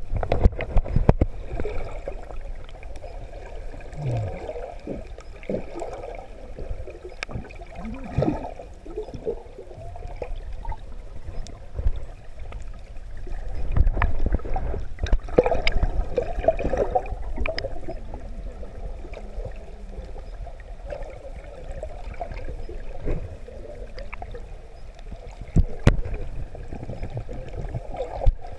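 Muffled underwater sound of moving water, picked up by a submerged camera: a low rumble with gurgling and bubbling, and scattered knocks as the camera is handled, loudest about halfway through.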